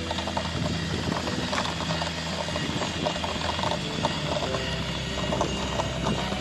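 Electric ride-on toy truck with an aluminium-profile frame and plastic wheels, rattling and clicking quickly and irregularly as it rolls over asphalt. Steady low notes of background music run underneath.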